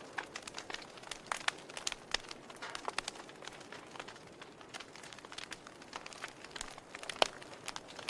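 Wood fire burning in a fireplace, crackling with irregular sharp pops over a steady soft hiss; the loudest pop comes about seven seconds in.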